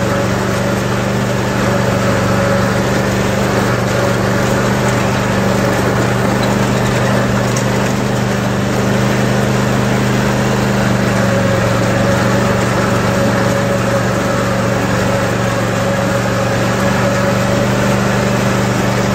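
Cub Cadet RZT riding mower's engine running steadily at an even speed while the mower drives across the lawn.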